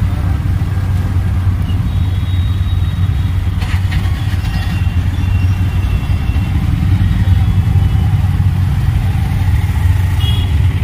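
Auto-rickshaw engine running with a steady low drone, heard from inside the open passenger cabin, over a bed of surrounding traffic noise.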